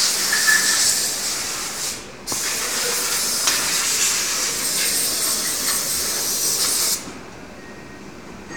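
A loud, steady hiss, like air rushing out. It breaks off briefly about two seconds in, then resumes, and stops abruptly about seven seconds in.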